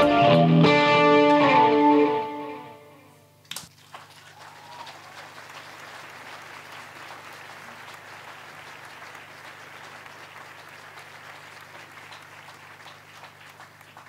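Live band with electric guitar playing the song's final chord, which dies away about two and a half seconds in. After a short click, an audience applauds steadily.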